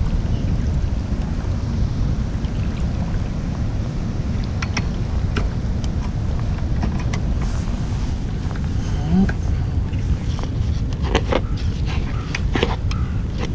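Wind rumbling steadily on the microphone, with a scattering of small clicks and knocks from fishing tackle being handled, more of them near the end.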